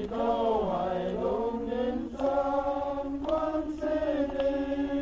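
A group of men singing a hymn together, unaccompanied. The tune moves through several notes at first, then settles on a long held note about two seconds in.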